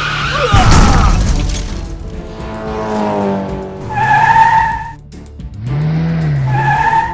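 Cartoon sound effects of a race car careering out of control: a loud rushing engine surge about a second in, with tyres skidding, over background music.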